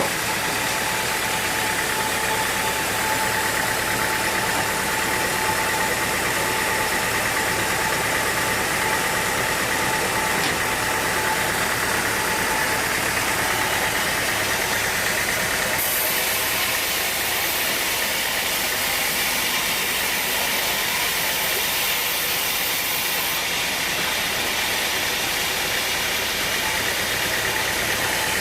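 Sawmill machinery running steadily: a continuous mechanical drone with a faint whine, and a high hiss that comes in about halfway through and drops away a few seconds before the end.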